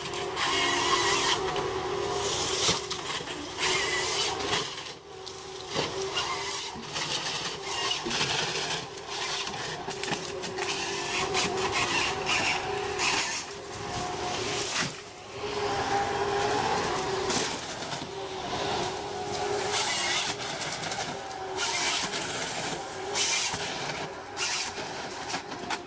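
Wheeled forestry harvester at work: its engine runs with a steady held tone under the hydraulic felling head, with frequent sharp cracks and knocks of wood and branches as trees are gripped, cut and fed through the head.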